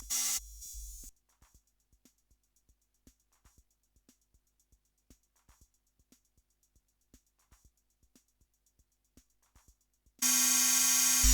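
Electronic drum loop played through a spectral delay effect (Ableton Live 11's Spectral Time), producing a dense, bright, shimmering processed sound. It cuts out about a second in, leaving only faint short ticks about three times a second. The full processed sound comes back in loudly near the end.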